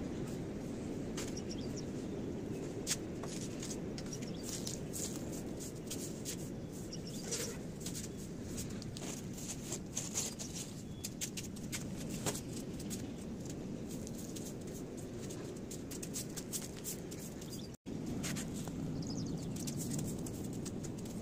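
Short, irregular scraping strokes on a concrete floor as a hand scraper blade works caked soil loose, over a steady low background noise. Near the end a broom sweeps the concrete.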